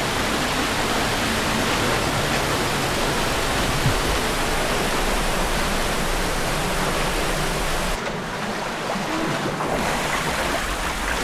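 Steady rush of a waterfall pouring into a pool, going briefly duller for a couple of seconds near the end.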